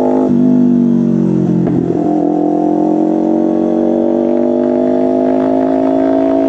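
Kawasaki Ninja 500's parallel-twin engine running under way, heard from the rider's position. Its note drops about a third of a second in as it shifts up, wavers again near two seconds, then climbs slowly and steadily as the bike gathers speed.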